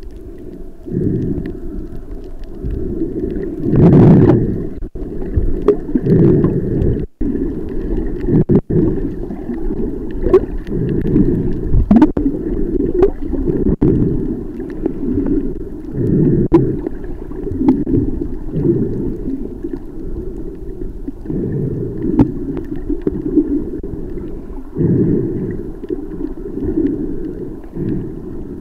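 Muffled underwater rumbling and swishing of water moving around a camera held below the surface, rising and falling in uneven swells, with a few sharp clicks.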